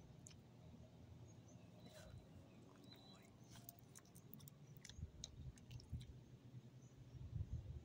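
A small dog faintly chewing and smacking on a food treat: scattered soft clicks.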